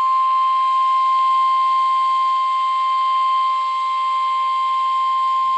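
NOAA Weather Radio's 1050 Hz warning alarm tone over a receiver's hiss: one steady, unbroken beep. It signals that a warning broadcast is about to follow, here a special marine warning.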